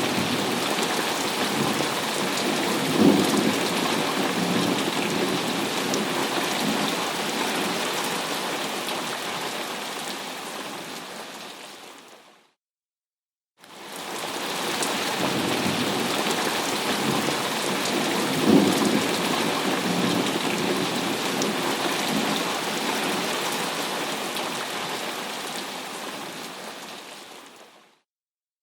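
Thunderstorm: steady heavy rain hiss with a clap of thunder rumbling about three seconds in. The sound fades out to a second of silence midway, then the same rain-and-thunder passage plays again and fades out near the end, a looped recording.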